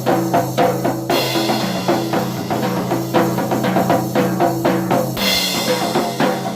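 Acoustic drum kit played in a steady groove, with kick, snare and fast hits, and cymbal crashes about a second in and again near the end. Sustained pitched notes sound underneath.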